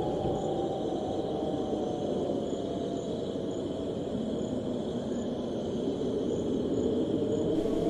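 Wind blowing in a steady low rush that slowly swells and eases, with a steady high trill of crickets behind it.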